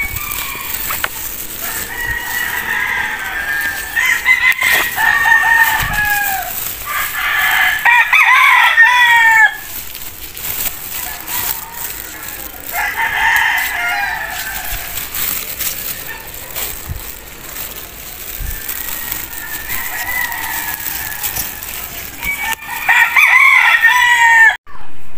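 Roosters crowing, about six long crows one after another, some close together.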